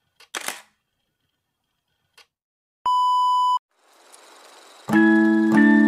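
A single steady electronic beep lasting under a second, then outro music with electric piano chords starting about five seconds in.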